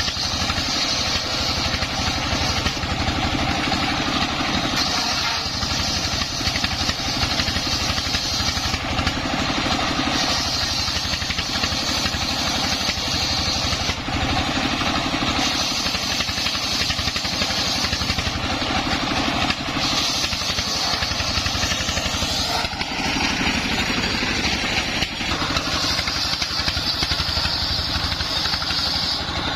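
Dongfeng 24 hp single-cylinder diesel running steadily under load, driving a homemade circular saw. A high-pitched blade sound comes and goes in stretches of a few seconds as the blade cuts through the wood.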